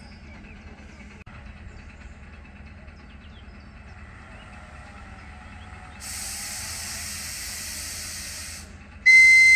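ED4M electric train standing at the platform with a steady low hum and faint birdsong. About six seconds in, a hiss of compressed air is released for about two and a half seconds. Near the end, the train's loud, high-pitched whistle starts, a steady tone that is the departure signal.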